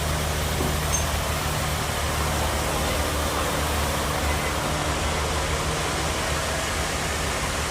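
A machine running steadily with a constant low hum under an even hiss.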